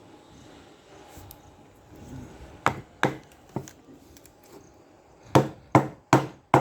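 Sharp knocks as the brake lever is tapped onto the splined brake cam shaft of a scooter's front brake plate: three spaced knocks, a pause, then four quicker ones.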